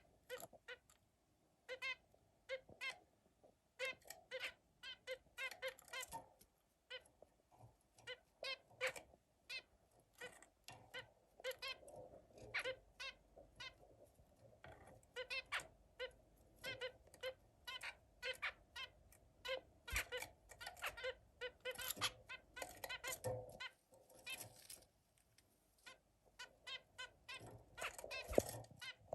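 Zebra finch calling: a long run of short, squeaky calls, one to several a second, with brief pauses between runs.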